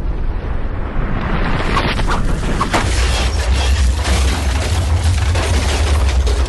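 Loud, deep rumble of a volcanic eruption's ash cloud. A dense rushing blast swells about a second in, filled with many cracks and pops, and the low rumble grows heavier a second or two later.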